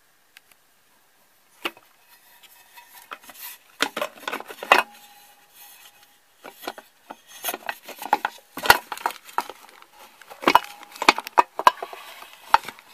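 Irregular clicks, knocks and scraping as an opened aluminium 30 W LED floodlight housing, with its finned driver case inside, is handled and shifted on a tabletop.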